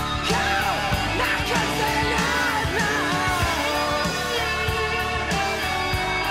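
Music: a song with a singing voice over guitar-led backing.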